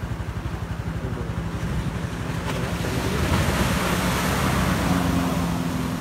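Heavy surf breaking and washing over a low concrete seawall. A wave surge swells about halfway through and eases near the end, over a steady low engine hum.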